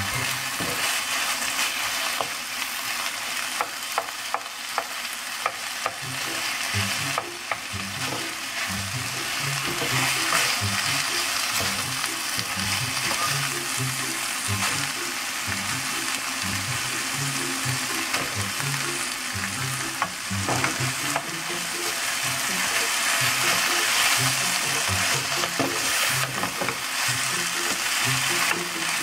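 Kimchi, diced Spam and tofu sizzling in a nonstick frying pan while a spatula stirs and scrapes through them. A run of sharp spatula taps against the pan comes between about three and seven seconds in, with a few more later.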